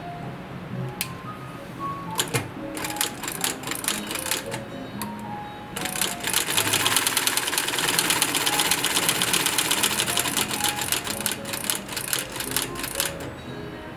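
Industrial cylinder-arm sewing machine stitching leather: short runs of stitches at first, then a fast, even run for several seconds from about six seconds in, breaking into short bursts near the end. Background music plays underneath.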